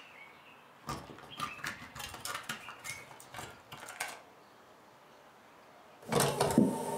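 Cassette tape recorder being handled: an irregular run of clicks and knocks for about three seconds as the cassette and keys are worked, then music starts playing about six seconds in.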